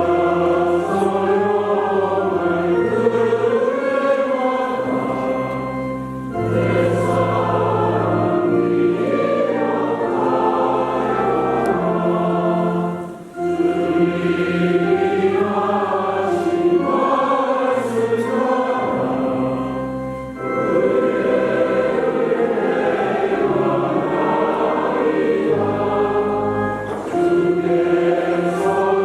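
Church choir singing a hymn, phrase by phrase, with short breaks between phrases about every seven seconds.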